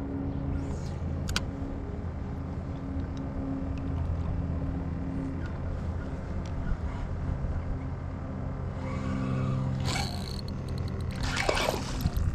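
Electric trolling motor running with a steady hum, its pitch shifting slightly a couple of times. A few louder, rougher bursts of noise come near the end.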